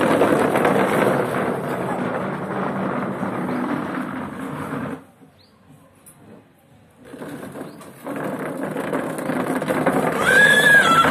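A plastic chair's legs scraping and grinding across a concrete floor as it is pushed along, stopping for about two seconds midway and then starting again. Near the end there is a short high squeal.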